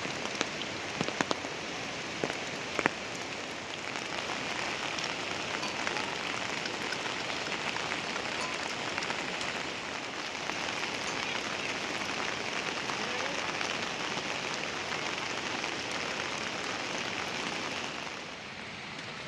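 Heavy rain falling steadily, with a few sharp drips in the first few seconds. It grows a little louder about four seconds in and eases slightly near the end.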